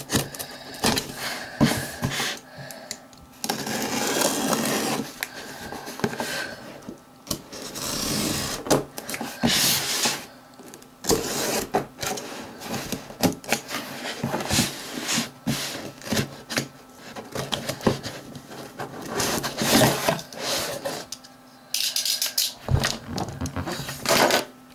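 Utility knife cutting through packing tape and cardboard on a shipping box, with scraping, tearing and rustling of the cardboard and scattered clicks and knocks as the box is handled and its flaps are opened.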